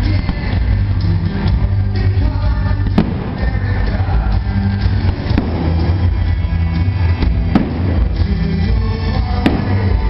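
Loud music with a steady bass beat, with several sharp bangs of aerial firework shells bursting every two seconds or so.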